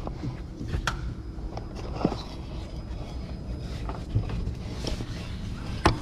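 Handling noise in a semi truck's engine bay: scattered clicks and knocks from hands, parts and the moving camera among the wiring harness, with a sharper knock near the end, over a low steady rumble.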